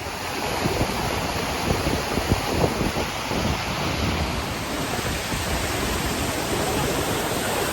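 Steady rush of water pouring down a large waterfall, an even noise with no breaks.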